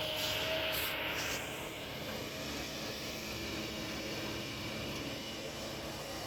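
Kobelco excavator's diesel engine running steadily, with a brief hiss in the first second or so.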